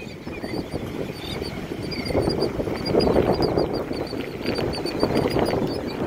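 A flock of royal terns calling, with many short, chattering calls overlapping over a low, rough rumble of surf and wind.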